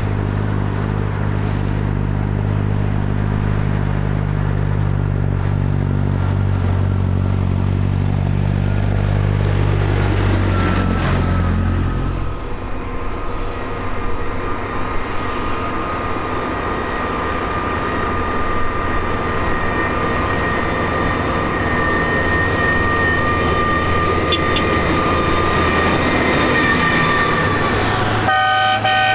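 Diesel farm tractor engines running as a procession of tractors drives along a road. A deep, heavy engine note is strongest for the first twelve seconds and then drops away, leaving the quieter engines of the approaching tractors with a steady whine.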